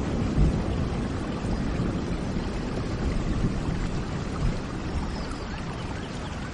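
Steady rain with a deep low rumble underneath, and faint short bird chirps now and then.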